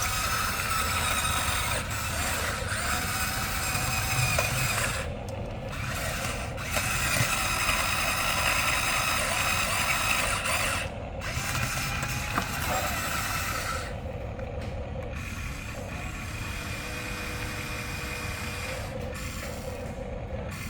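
Huina remote-control excavator's small electric motors and gearboxes whirring as the machine moves, stopping briefly several times between movements.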